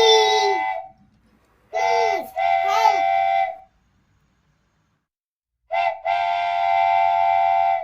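Train horn sounding in separate blasts: one dying away in the first second, two toots between about two and three and a half seconds in, then a short toot and a long steady blast near the end. Each blast is a chord of several tones held at a steady pitch that sags briefly as it starts and stops.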